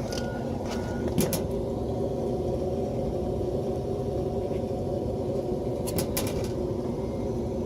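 A steady machine drone, with a few short sharp clicks about a second in and again around six seconds.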